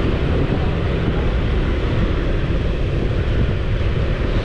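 Wind rushing over the microphone and the rumble of a moving motorbike, heard from the rider's seat: a deep, steady rush with no breaks.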